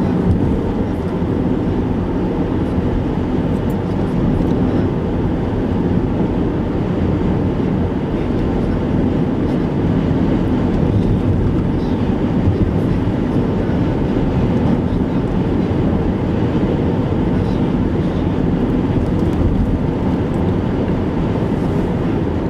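Strong wind buffeting the microphone: a steady, loud, low rumbling roar.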